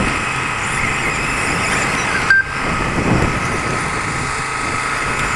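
2wd off-road RC buggies racing round the track, their motors whining steadily, with one short electronic beep about two seconds in.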